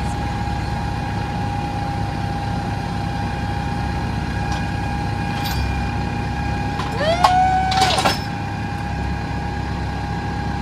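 Diesel engines of two Kubota tractors running steadily under load, with a steady whine, as the larger tractor's front loader pulls a post-hole auger, jammed on a tree root, up out of the ground. A brief louder sound with rising tones comes about seven seconds in.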